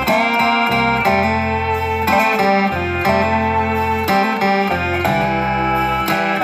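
Background instrumental music: a melody of changing notes over held bass notes.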